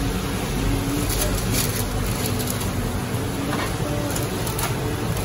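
Steady food-stall kitchen din with faint voices in the background, and a few light clicks of metal as fried chicken pieces are scooped and bagged.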